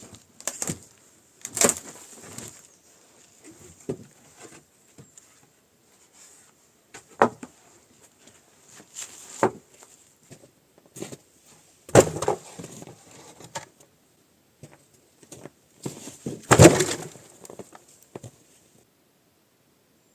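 Irregular knocks and clattering of things being handled and set down, a dozen or so separate impacts with the loudest about twelve and seventeen seconds in, over a faint steady hiss that stops near the end.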